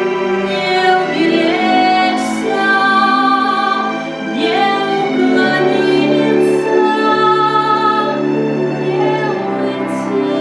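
Female vocal ensemble singing a song in harmony, with held notes and a few sharp sung consonants.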